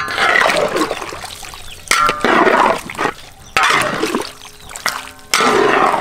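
Metal spatula stirring chicken drumsticks and eggs through thick curry sauce in a large wok: about four wet sloshing strokes, each under a second.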